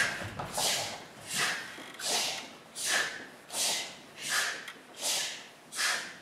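A group of children making rhythmic, breathy hissing sounds in unison, about three every two seconds, each a short swell that fades away.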